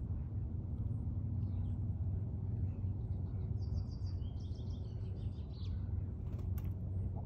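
Steady low outdoor background rumble, with a small songbird's quick run of high chirps about halfway through.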